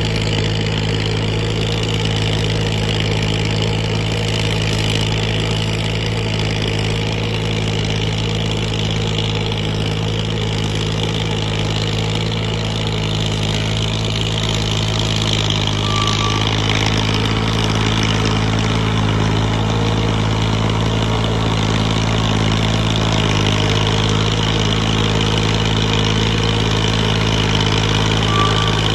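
Massey Ferguson 240 tractor's three-cylinder diesel engine running steadily under load while it pulls an implement through a flooded field. The drone holds an even pitch, shifting slightly about two-thirds of the way through.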